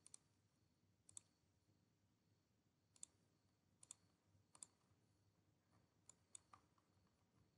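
Faint computer mouse clicks, about seven spread out, some in quick pairs, over near silence.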